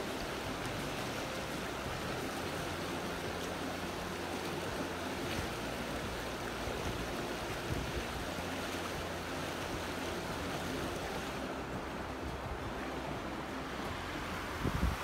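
Fast-moving creek water rushing steadily, with a brief low thump near the end.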